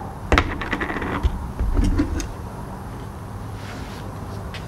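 Propane burners of a Blackstone 28-inch griddle running with a steady low rush, turned down to medium. Over it come several sharp clicks and clatters in the first second or so from metal tongs and the seasoning container being handled.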